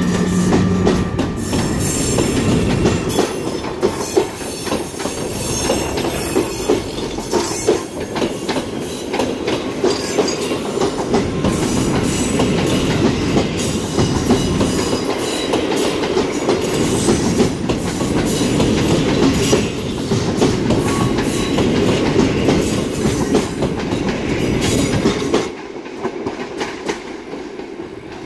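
Intercity passenger coaches rolling past behind a departing electric locomotive, wheels clattering over the rail joints. A steady electric whine from the locomotive fades out in the first second, and the noise drops off sharply about 25 seconds in as the last coach goes by.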